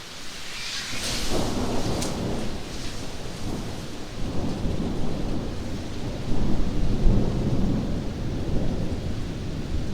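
Rain with a peal of thunder: a crackle about a second in, then a long low rolling rumble that carries on under the steady hiss of the rain.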